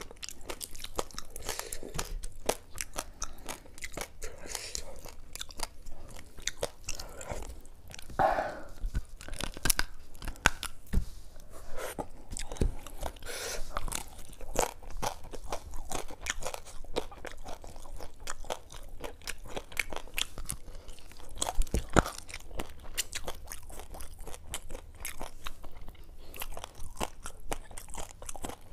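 Close-miked eating by hand: a continual run of small crunches and clicks from chewing and biting fried fish, with fingers picking the flesh off the bones.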